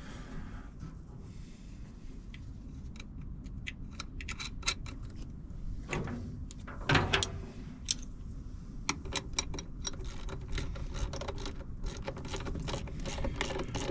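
Scattered metallic clicks and taps of a hand wrench run onto a nut and bolt at a truck battery cable clamp. The clicks come quicker and closer together in the second half.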